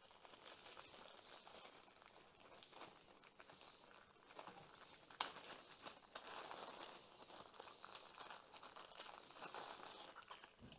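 Faint crinkling and rustling as a bag of small antenna-kit parts is opened and handled, with scattered light clicks and one sharper click about five seconds in.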